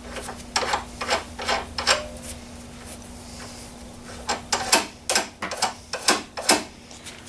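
Steel nut being turned onto a repaired bolt's freshly cleaned threads: short metallic scrapes and clicks in two runs, the threads now taking the nut after the mushroomed end was tapered.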